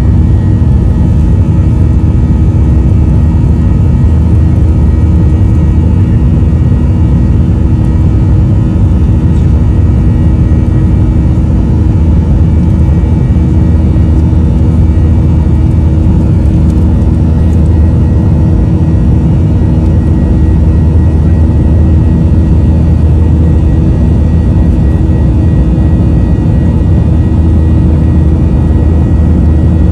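Steady cabin noise of an airliner in cruise-like flight: a loud, even low rumble of the engines and airflow heard inside the cabin, with a few steady humming tones over it.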